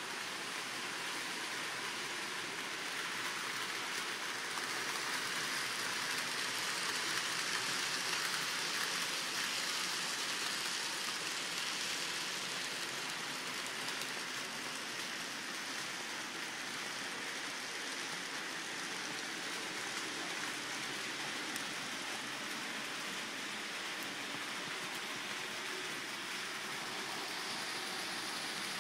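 N scale model trains running on the layout: a steady whirring hiss of small motors and wheels on the track, a little louder for a while in the first half.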